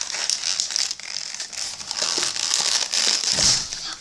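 Toy car packaging, plastic and cardboard, crinkling and crackling as it is handled and pulled open, with many small clicks and crackles.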